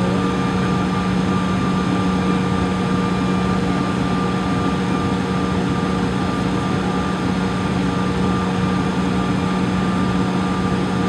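Cabin noise inside a Bombardier CRJ700 taxiing, its rear-mounted GE CF34 turbofans at low power: a steady hum with a few fixed tones over an even rush of air.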